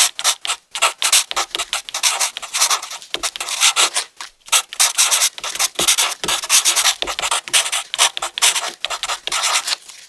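Felt-tip marker nibs scratching across paper in quick, short back-and-forth strokes as letters are coloured in, with a couple of brief pauses between runs of strokes.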